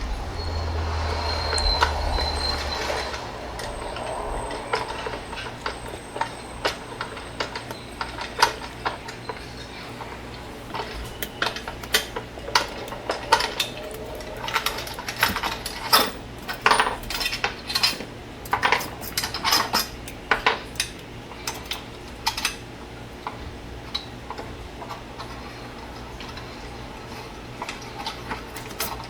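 Irregular small metallic clicks and clinks of screws being backed out of the metal rear housing of a Uconnect 8.4 car radio head unit with a screwdriver and handled, with a short steady hum in the first few seconds.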